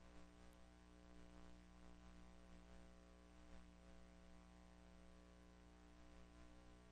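Near silence: a faint steady hum with a light hiss, the background noise of a tape copy of a silent film.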